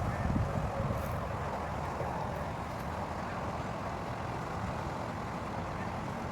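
Steady outdoor background rush with no distinct events, heavy in the low and middle range.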